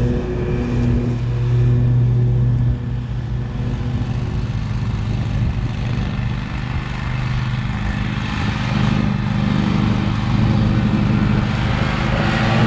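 Commercial stand-on mowers' engines running as they cut grass, a steady engine drone that grows louder near the end as one mower comes close.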